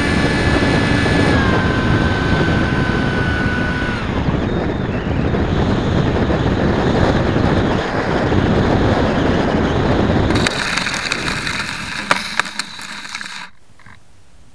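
RC Zephyr V-70 model plane landing, heard from its own onboard camera. The motor's whine steps down in pitch and cuts out about four seconds in, then wind rushes past during the glide. From about ten seconds in the airframe skids and scrapes across pavement with a few sharp knocks, stopping about a second before the end.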